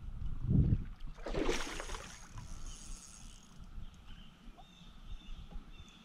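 A low thump, then a hooked carp splashing at the surface about a second and a half in, over a steady drone from a chorus of Brood X periodical cicadas.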